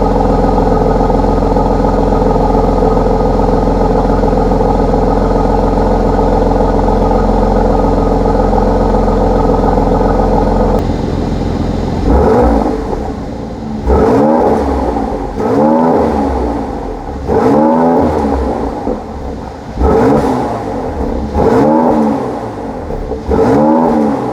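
2017 Mercedes-AMG C43's twin-turbo V6 running at a steady cold-start idle through its AMG Performance Exhaust with the exhaust valves open, then revved in about seven short throttle blips, each rising and falling in pitch, starting about halfway through.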